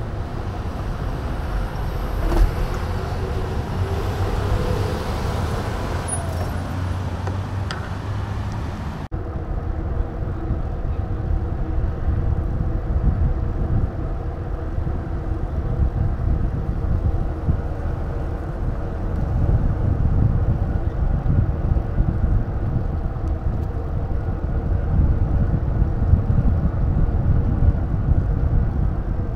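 Road traffic with wind rumbling on the microphone, recorded while cycling along city streets. About nine seconds in, the sound cuts abruptly to another stretch of traffic noise with a faint steady hum.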